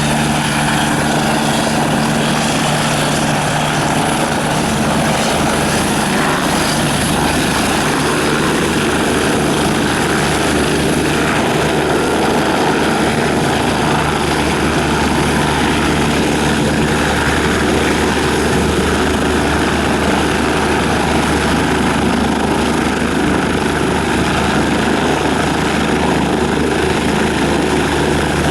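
Eurocopter-Kawasaki EC-145 (BK-117C-2) twin-turbine helicopter running steadily, with a fast, even rotor beat over a steady turbine whine and a low hum.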